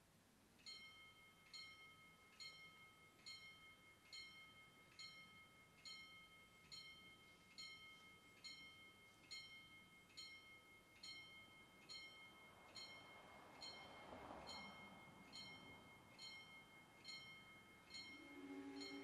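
Level crossing warning bells ringing as the crossing closes for an approaching train: sharp strikes a little more than once a second, each ringing on in a sustained tone. A brief rushing noise swells and fades about two thirds of the way through, and a lower steady tone joins near the end.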